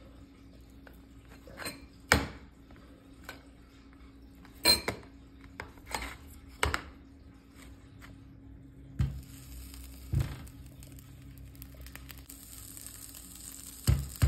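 Utensils clicking and knocking against a plastic container and a frying pan, a sharp knock every second or two, as leftover sausage is cut and moved into the pan. A faint sizzle sets in about two-thirds of the way through.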